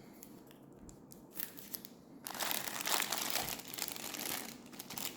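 Packaging crinkling and rustling as items are handled: a few scattered crackles at first, then a dense spell of crinkling from about two seconds in that eases off near the end.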